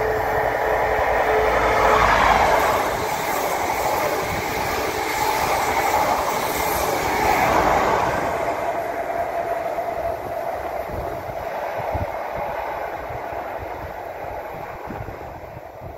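CrossCountry InterCity 125 high-speed train with Class 43 diesel power cars running through the station at speed. A steady horn note cuts off about two seconds in, then comes the rumble and wheel clatter of the power cars and coaches going past, loudest around two and seven seconds in. It fades as the train draws away.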